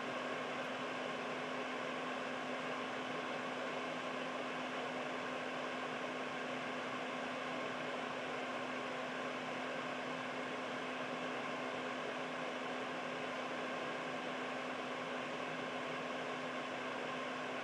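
Air purifier's fan running steadily: an even rush of moving air with a constant low hum under it.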